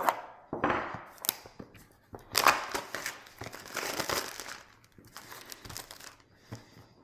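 Camera box packaging being opened by hand: irregular crinkling and tearing of wrap and cardboard, loudest from about two and a half to four and a half seconds in, with a few sharp clicks.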